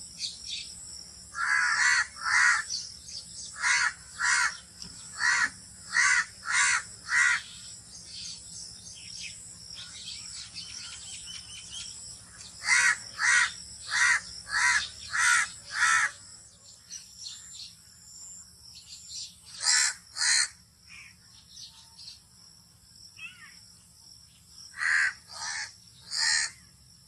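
Crows cawing in bouts of short, evenly repeated caws, with a few seconds' pause between bouts.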